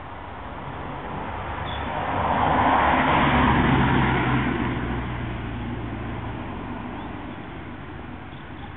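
Road vehicle passing: its noise swells, is loudest around three to four seconds in, then fades away.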